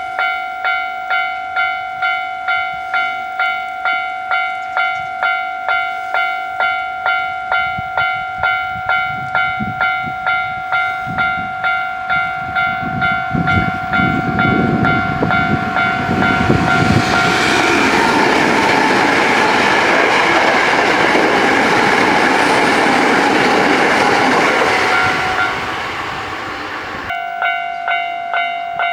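Japanese level-crossing warning bell ringing in an even rhythm, about two strikes a second. A Hankyu train then passes over the crossing, and its loud rolling rail noise drowns the bell for several seconds. The bell is heard again near the end.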